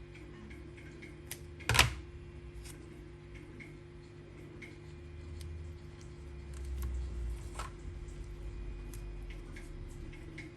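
Vinyl electrical tape being handled and wrapped on a battery pack: scattered small clicks and taps, one short loud crackle about two seconds in, and some low handling rumble around the middle.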